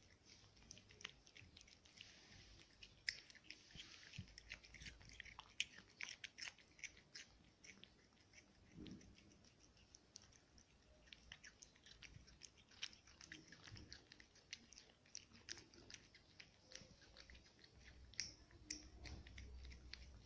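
A cat eating soft food from a plate: faint, quick, irregular wet smacking and clicking chewing sounds, several a second.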